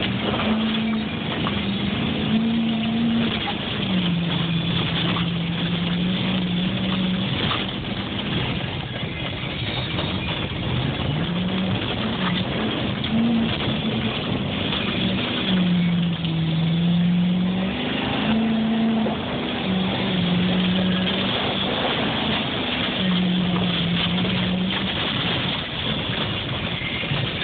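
Dodge Ram 1500 pickup's engine heard from inside the cab while driving off-road, its pitch rising and falling again and again with the throttle over steady rough rumbling.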